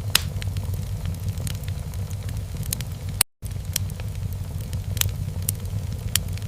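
Log fire in a fireplace crackling, with irregular sharp pops over the steady low rumble of the flames. The sound drops out completely for a split second about three seconds in.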